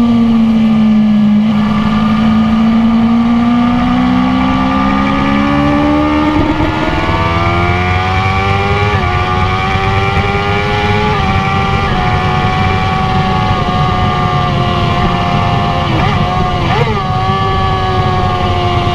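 BMW S1000RR inline-four engine running hard on track, its revs climbing for several seconds and then holding high with small steps in pitch, over a steady rush of wind.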